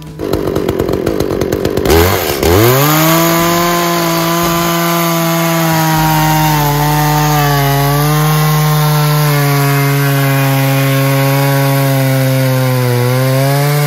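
Chainsaw cutting rounds off a log: it runs low for about two seconds, revs up sharply, and then holds at high speed through the cut, its pitch dipping slightly now and then under load.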